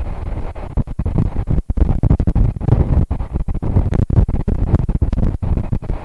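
Strong wind gusting on the microphone: a loud low rumble that rises suddenly at the start and is broken by many brief dropouts.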